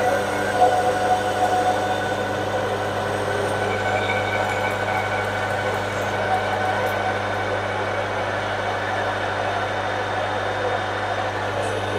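Metal lathe running steadily under a turning cut, an insert tool taking about 1.2 mm off the diameter of a round metal workpiece each pass: a steady hum with a few steady higher tones over the noise of the cut.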